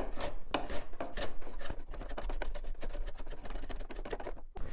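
Smoothing plane skewed at about 45 degrees taking light passes across an end-grain walnut cutting board: a rapid run of short scraping strokes as the blade shaves the end grain.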